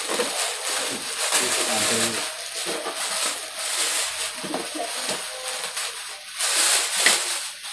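Plastic bags crinkling and rustling as hands unwrap a parcel, loudest near the end.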